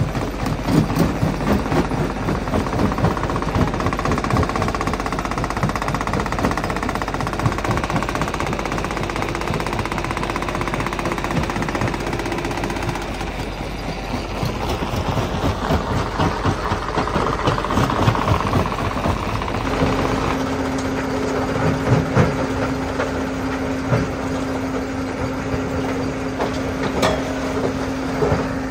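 Rock crusher at work: an engine running under a dense, irregular clatter and knocking of rock being crushed. The engine's steady tone changes about two-thirds of the way through.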